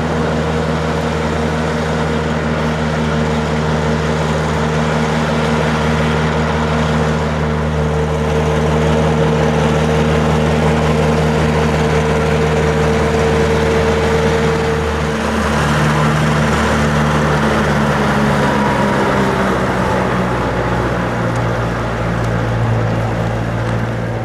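David Brown tractor engine idling steadily, with a slight change in its note about fifteen seconds in.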